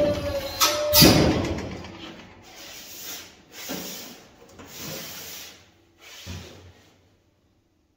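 Stainless-steel sheet being worked and handled, with a loud metallic scrape in the first second or so and a brief ringing tone. Then several softer rubbing, scraping strokes follow, and it all stops about seven seconds in.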